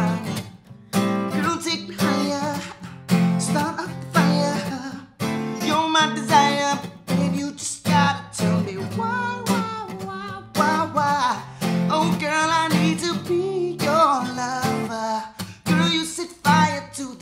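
Steel-string acoustic guitar strummed in a brisk, steady rhythm, with a man singing over it.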